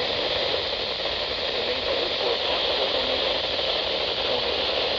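Steady radio static hiss from a weak, noisy radio reception, with no clear voice coming through.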